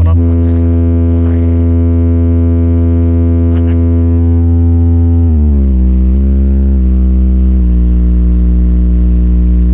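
Brewog Audio's sound system playing a very loud, deep sustained synth bass drone. It holds one pitch, then steps down through a few lower notes about halfway through.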